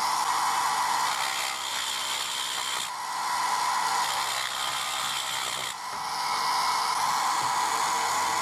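Homemade mini rotary tool, a small DC motor powered at 24 V with a mini cutting disc, running and grinding into the package of a computer processor chip. The sound is a steady whir that eases briefly about three seconds in and again near six seconds as the load on the disc changes.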